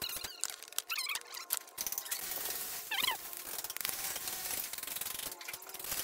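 Steel brick trowel working bricks and mortar: a run of quick, sharp taps and clicks, then a steady scraping rasp through the middle, with a brief high squeak about three seconds in and more taps near the end.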